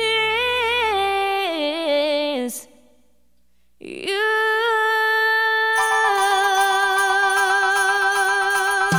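Music: a female voice sings a slow phrase with vibrato that falls step by step, breaks off about two and a half seconds in, then comes back on a long held note. More instruments come in about six seconds in.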